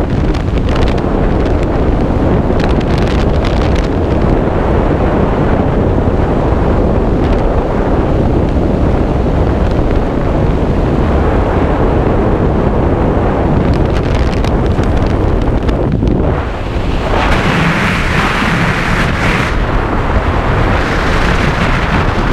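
Loud, steady rush of freefall wind buffeting a skydiver's helmet-mounted camera microphone. A brief dip comes about three-quarters of the way through, followed by a hissier stretch.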